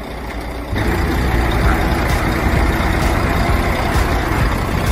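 Heavy diesel engine running under load, getting louder about a second in.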